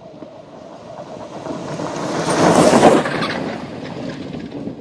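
Electric Baja Bug off-road race car driving past close by: a rush of noise with little engine sound that swells to its loudest about two and a half seconds in, then fades away.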